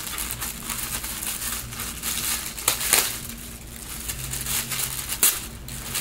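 Packaging being handled and unwrapped: irregular crinkling and rustling, with a couple of sharper crackles about halfway through and near the end.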